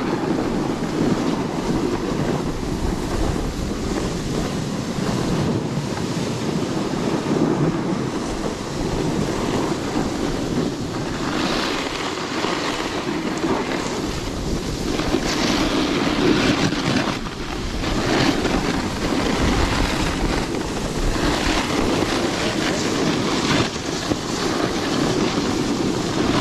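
Wind rushing over the microphone of a camera carried downhill, mixed with the scrape of a snowboard and skis over packed snow. The rushing noise is steady, with a few swells of harsher hiss as the rider turns.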